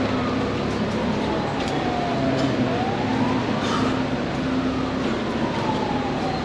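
A siren wailing slowly, its pitch falling for about two and a half seconds, rising for about a second, then falling again, over a steady low hum.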